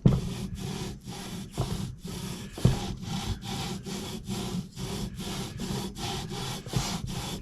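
Lapping bar coated with lapping compound being worked back and forth inside Weaver scope rings, a rhythmic gritty rubbing at about four strokes a second, as the compound grinds the ring surfaces true. A couple of louder knocks come near the start and about two and a half seconds in.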